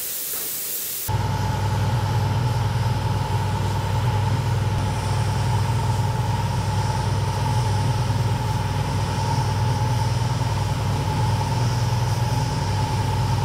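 A spray gun hisses for about a second and then cuts off abruptly. After the cut, a steady electric hum with a constant higher tone runs evenly: the early-1950s General Electric refrigerator's compressor running.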